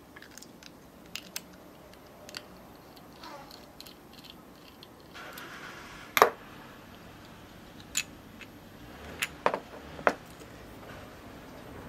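Small clicks and taps of a 1/64 diecast model car being taken apart by hand, irregular, with a louder click about six seconds in and a few more near the end.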